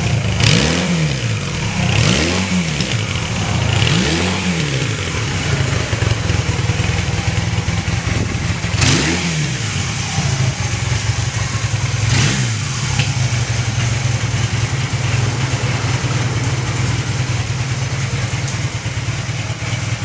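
Honda CB450N parallel-twin motorcycle engine idling steadily, with the throttle blipped five times: three quick revs in the first four seconds, then two more around nine and twelve seconds in, each rising and falling back to idle.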